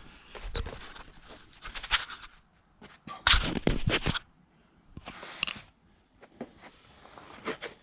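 Knocking, clicking and scraping of a coil spring with its rubber spring pads being handled and fitted back into a car's rear suspension, loudest in a scraping patch about three seconds in and again briefly about five seconds in.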